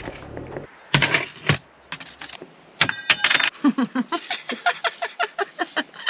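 Metal cutlery and dishes clattering while being rummaged out of a storage compartment: a few sharp knocks, then a quick run of rattling, ringing strikes from about halfway through.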